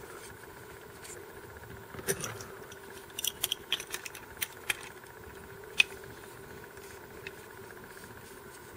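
Faint metallic clicks and taps of an open-end wrench and plastic filter and regulator housings being handled while the hex nipple joining them is tightened. The clicks are scattered, mostly between about two and six seconds in, over a low steady hum.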